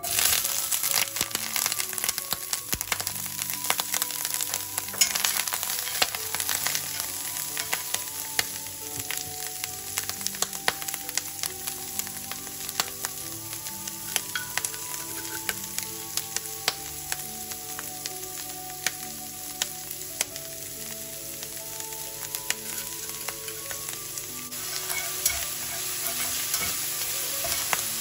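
Chopped pickled mustard greens sizzling and crackling in hot oil in a nonstick frying pan while being stir-fried with chopsticks. The sizzle starts suddenly as the greens go into the pan and is loudest for the first few seconds, then settles into a steady fry with scattered pops.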